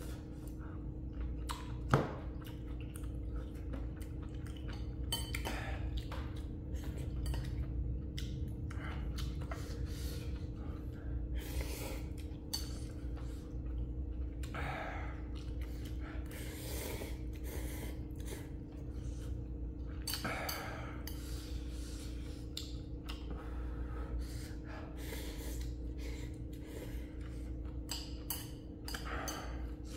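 A person eating very spicy ramen: short slurps, sniffs and heavy breaths throughout, with a sharp clink of a utensil on the bowl about two seconds in, over a steady low hum.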